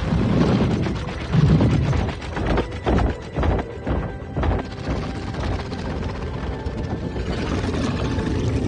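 Movie sound effects of a giant robot's metal mechanisms: low rumbling swells, then a quick run of sharp clicks and clanks about halfway, over dark orchestral score.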